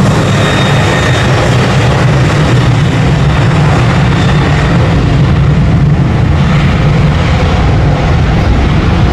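Lion Air Boeing 737-900ER's CFM56-7B jet engines running at high power during the takeoff roll: a steady, loud roar with a deep rumble underneath.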